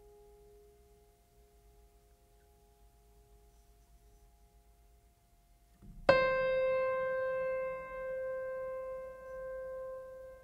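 Soft background music: a faint held chord fades away, then about six seconds in a single loud struck note rings out and slowly dies away.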